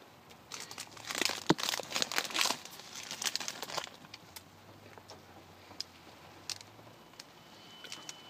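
Foil wrapper of a chocolate orange crinkling and tearing for about three seconds, followed by a few scattered light clicks.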